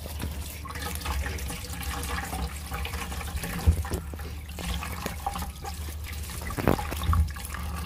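Tap water running into a steel bowl of water in a stainless-steel sink while eggplants are rubbed and rinsed by hand. A few brief louder sounds from the handling stand out about four seconds in and again near the end.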